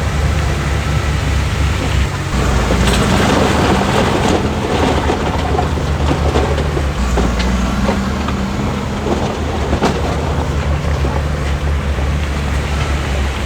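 Diesel engine of heavy construction machinery running steadily under load. From about two seconds in, repeated clanking and scraping of metal and rock join it.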